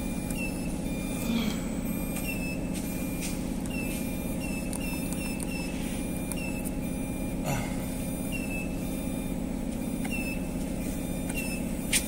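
Steady hum of a CNC wheel-repair lathe switched on, with short high electronic beeps at irregular intervals as keys on its control-panel keypad are pressed, and a single knock about halfway through.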